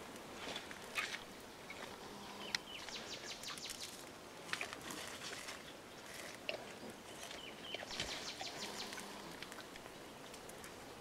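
Faint rustling and crackling of leafy stems as a mountain gorilla feeds in dense vegetation, with several short runs of fast, high-pitched ticking.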